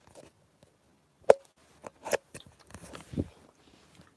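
Handling noise right on a phone's microphone: several sharp knocks and rustles, the loudest a little over a second in, and a dull thud about three seconds in.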